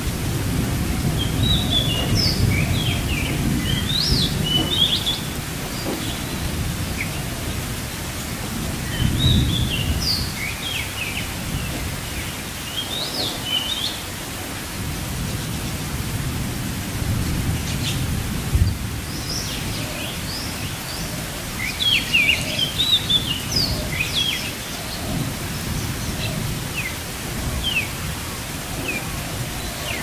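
Steady rain hiss with an uneven low rumble beneath it. Small birds chirp in quick runs of short, high notes: in the first few seconds, again around ten seconds in, and most busily around twenty-two seconds in.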